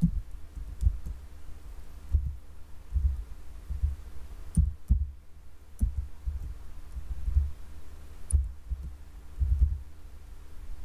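Slow, irregular computer keyboard keystrokes, heard mostly as dull low thuds with a few sharper clicks, over a faint steady hum.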